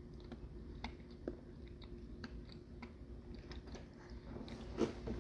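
Faint chewing of a soft frosted cupcake: scattered small wet mouth clicks over a low steady hum.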